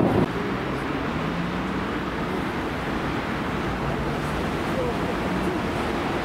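A loud rushing noise cuts off abruptly just after the start, leaving a steady outdoor noise with faint distant voices.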